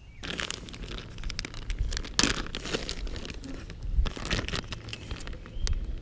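Clear plastic zip-top bag of soft-plastic fishing baits crinkling and rustling in quick, irregular crackles as hands handle and open it.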